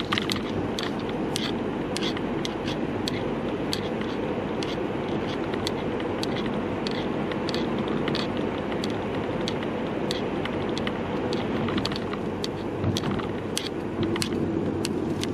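Steady car road and engine noise heard from inside the cabin while driving, with frequent irregular little clicks and ticks from the camera's hanging strap rattling against the camera.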